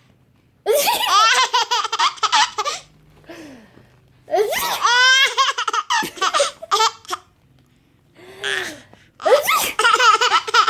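A baby laughing hard: four bouts of rapid, high-pitched belly laughter with short pauses between them.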